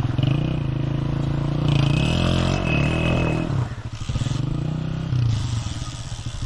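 Motorcycle engine revving up and down as the bike is ridden through a shallow, stony canal, with water splashing. About three and a half seconds in the revs drop, then rise again briefly near five seconds as the bike stalls in its crossing and slips.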